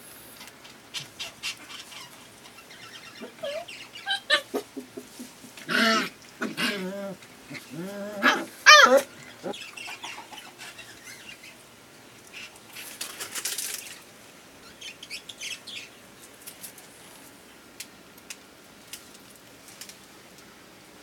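Puppies play-fighting, crying out in short yelps and squeals that bend up and down in pitch, loudest about six and nine seconds in, with light scuffling clicks in between.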